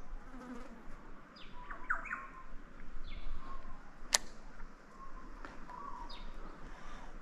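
Wild birds calling: a scatter of short, downward-sweeping chirps. About four seconds in there is a single sharp click, the loudest sound.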